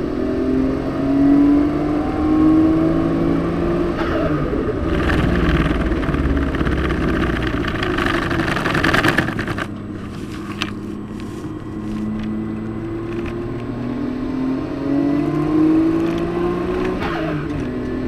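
Car engine heard from inside the cabin at full throttle on a circuit lap: its pitch climbs, drops at a gear change about four seconds in, and a rush of noise rides over it until about nine seconds in. It eases off around ten seconds in, then climbs through the revs again and drops at another gear change near the end.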